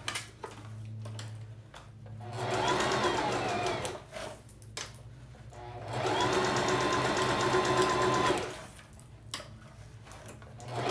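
Singer electric sewing machine stitching in two runs. The first starts about two seconds in and lasts about two seconds, its motor whine rising and falling in pitch. The second, longer and steadier, runs from about six to eight and a half seconds in. It is going back over an earlier seam to reinforce the stitching.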